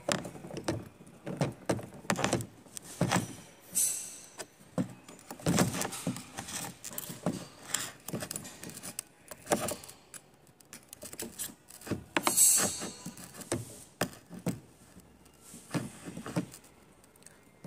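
Steel parts of a 1996 Toyota Hilux power steering box clicking and clinking as they are handled and fitted by hand: the toothed rack piston and worm shaft tapping against each other and the bench in irregular knocks, with two louder scraping rattles about four and twelve seconds in.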